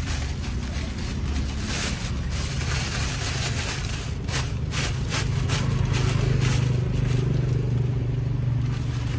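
Thin plastic carrier bag crinkling and rustling in short bursts as cups are packed into it, over the steady low hum of a vehicle engine or road traffic.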